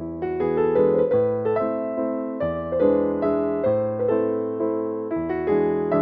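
Background piano music: a gentle melody of quick successive notes over lower held chords.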